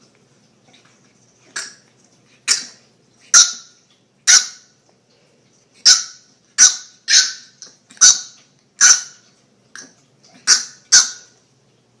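Bulldog puppy barking in short, high-pitched yaps, about a dozen at uneven intervals, some coming in quick pairs.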